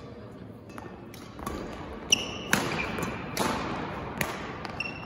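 Badminton rally: sharp cracks of rackets striking the shuttlecock, with short high squeaks of court shoes on the floor, starting about two seconds in.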